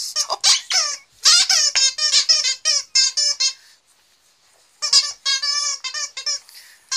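A squeaky dog toy being squeaked rapidly as a puppy chews it: quick runs of short, high squeaks, a pause of about a second midway, then another run.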